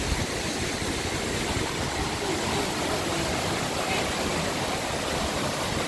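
A waterfall and its creek rushing: a steady, even roar of falling and running water.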